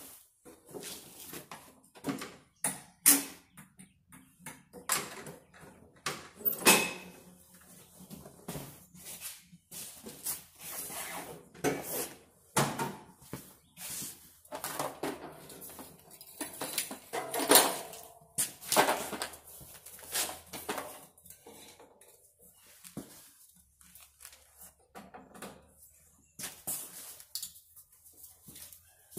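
Irregular knocks, clanks and rustling from someone handling a lawn tractor by hand, with no engine heard running.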